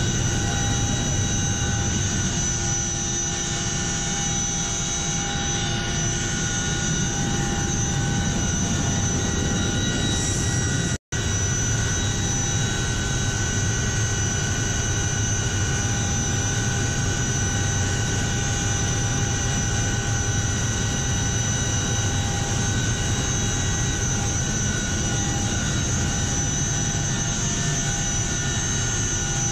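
CH-47 Chinook tandem-rotor helicopter running at the ground, heard from inside the cabin with the rear ramp open: a steady high whine of several tones over a broad low rumble. The sound cuts out for an instant about eleven seconds in.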